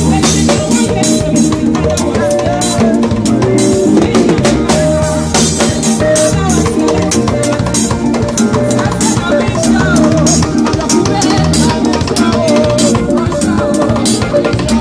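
Live band music played loudly with a drum kit prominent: steady bass drum, snare and cymbal hits in an even beat over a repeating bass line and a melodic instrument.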